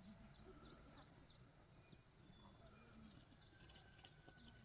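Faint outdoor quiet with a bird repeating short, high chirps that sweep downward, a few a second.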